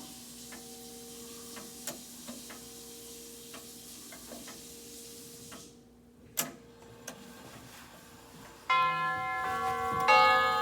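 Herschede tubular-chime grandfather clock ticking, with two faint steady tones from the tubes fading under the ticks. About nine seconds in the chime tubes start ringing loudly in several tones, and a second stroke about a second later adds more tones.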